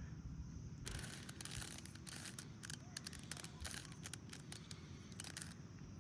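A plastic Rubik's Cube being twisted by hand: a quick, irregular run of small clicks and clacks as its layers turn, starting about a second in.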